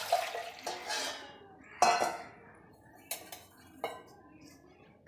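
Hand stirring dry flour in a stainless steel mixing bowl, with several clinks and knocks of the metal bowl ringing briefly, the loudest about two seconds in.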